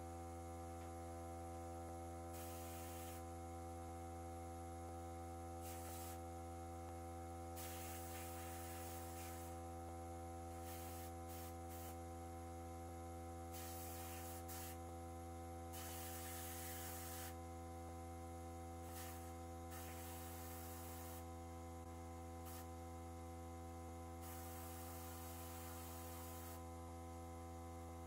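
A steady low hum with a stack of steady higher tones, broken several times by bursts of hiss a second or two long.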